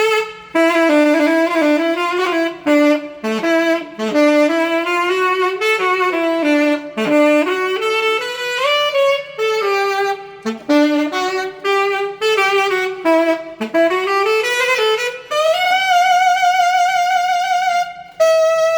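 Solo saxophone playing a melody in the echoing acoustics of a garage, ending on a long held note with vibrato from about fifteen seconds in.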